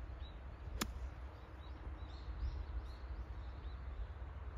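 A golf club strikes the ball once, a single sharp crack about a second in. Birds chirp throughout, over a low wind rumble on the microphone.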